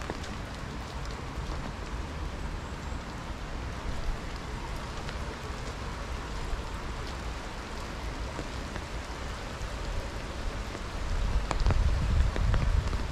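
Steady rain falling, with scattered drops ticking close by. Near the end a low rumble rises under it.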